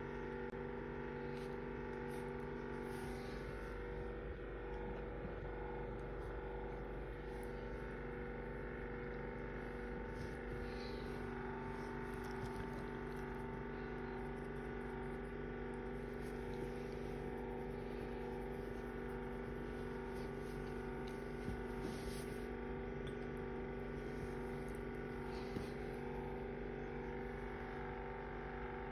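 Steady electrical hum with several constant tones from a space heater that was knocked over and broken, with a few faint knocks now and then.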